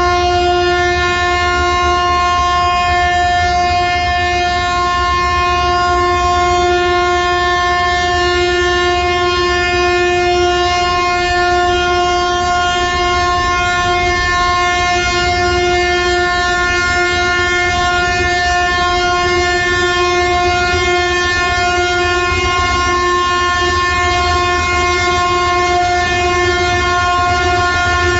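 One long, unbroken horn blast held at a steady pitch, over a low rumble. It is sounded in mourning for the earthquake victims.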